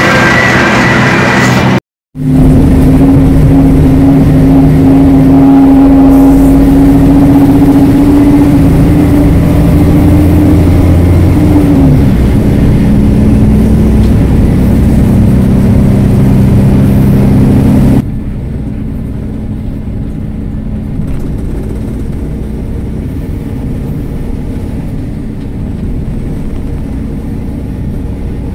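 Yard tractor engine running loud inside its cab: a steady deep hum with a strong tone that falls in pitch a little before the middle. After that the sound drops to a quieter, steady vehicle rumble.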